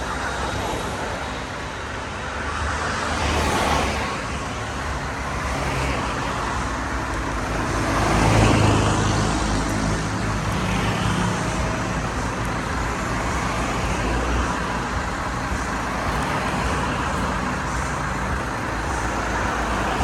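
Road traffic noise: motor vehicles running and passing by, with louder swells about three and a half and eight and a half seconds in.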